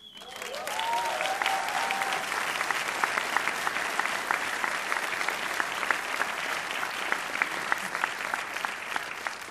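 Audience applauding: the clapping swells over the first second, then holds steady and thick.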